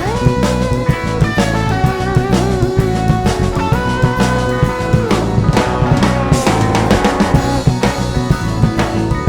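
Rock music with drums and electric guitar, the guitar playing long held and bending notes over a steady beat.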